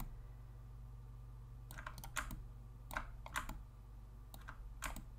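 Scattered clicks from a computer mouse and keyboard, coming in small clusters of two or three, over a faint steady low hum.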